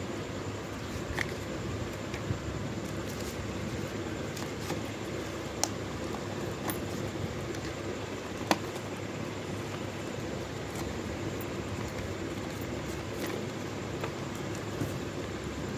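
Steady low background noise with scattered light clicks and taps from hands handling a paper leaflet, cardboard box and watch strap; the sharpest click comes just past halfway.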